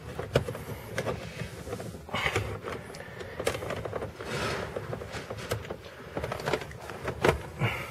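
Scattered light clicks, taps and scrapes of hands handling plastic trim pieces and small fasteners while a car's center console is taken apart.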